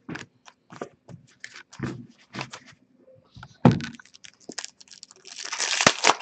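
Hockey trading cards being handled and flipped: a run of short clicks and rustles, a thump about halfway through, and a longer crinkling rustle of packaging from near the end.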